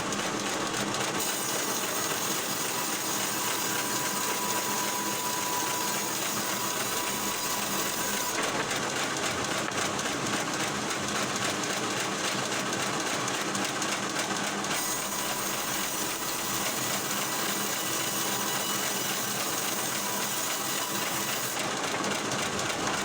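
Log-cutting machinery running steadily, a dense mechanical clatter with a faint steady hum. Its character changes abruptly three or four times.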